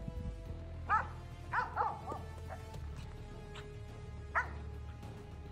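Hunting dogs giving short, high yelps and whines, about six of them, most in the first half and one more a little past four seconds in, over quiet background music.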